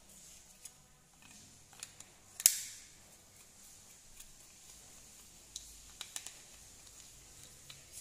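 Screwdriver clicking against the screw terminals and plastic body of a wall light switch as the terminal screws are worked: a few sharp clicks, the loudest about two and a half seconds in, and a small cluster a little past halfway.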